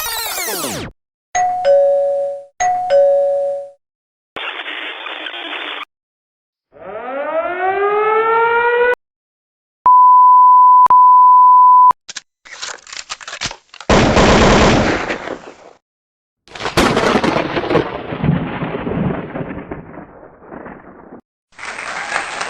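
A string of short stock sound effects with brief silences between them. There is a two-note ding-dong chime played twice, a short burst of hiss, then a sound gliding upward in pitch. About ten seconds in comes a steady two-second beep like a censor bleep, followed by clicks and two longer noisy effects.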